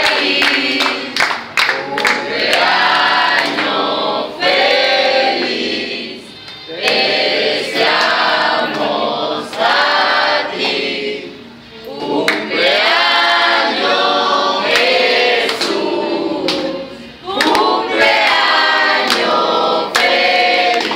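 A group of people singing a birthday song together in phrases, with hand claps keeping time.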